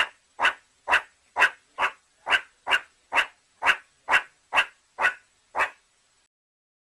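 Meerkat calling: a quick, regular series of about thirteen short calls, roughly two a second, stopping about six seconds in.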